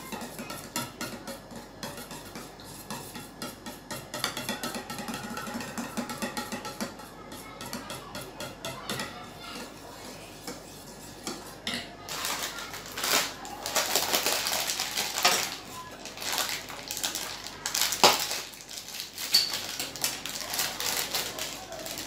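Spoon stirring curd in a bowl, then the crinkling of aluminium foil and utensils clattering as boondi is handled for raita, with one sharp clink late on.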